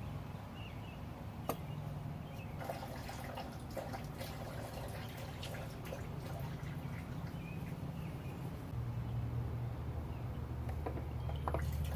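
Engine oil trickling and dripping into a drain pan, with a few sharp clicks, over a steady low hum.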